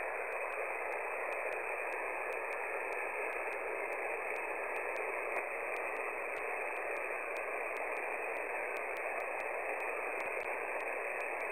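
Steady static hiss from a shortwave receiver on the 20-metre single-sideband amateur frequency, 14.325 MHz, with no station transmitting. A faint wavering tone runs under the hiss.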